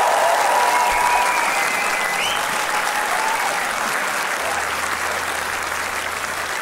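Concert audience applauding at the end of a song, with a few high cheers or whistles over the first two seconds or so.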